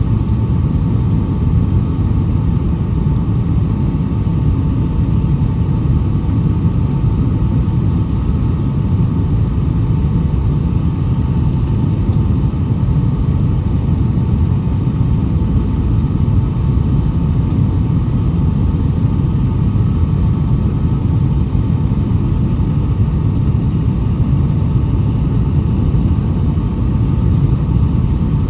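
Cabin noise of a Boeing 757-232 heard from a window seat: a loud, steady rumble with two steady engine tones near 1 kHz above it, unchanging throughout.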